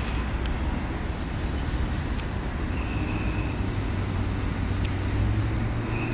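Steady low rumble of traffic on a wide city street, with a low hum that grows a little stronger near the end and a few faint clicks.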